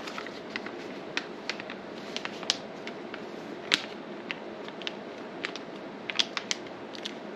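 Scattered light clicks and taps of small hardware and packaging being handled, over a steady fan-like hum. The loudest click comes about halfway through.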